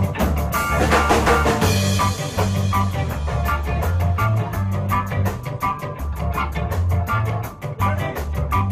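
Ska band playing without singing: drum kit with a steady cymbal beat of about four to five strokes a second, a moving bass line and guitar. A cymbal crash comes about half a second in and rings for a couple of seconds.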